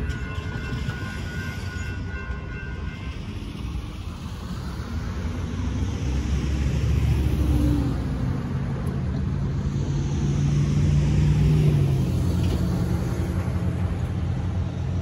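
Railroad crossing bell ringing as the gates rise, stopping about three seconds in. Then cars and a box truck drive past over the crossing, their engines and tyres swelling twice as each passes close.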